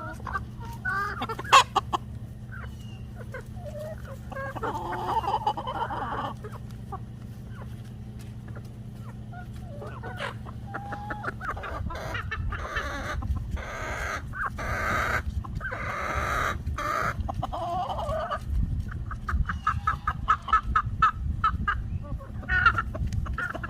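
Chicken clucking, with louder, harsher calls near the middle and a quick run of short taps near the end.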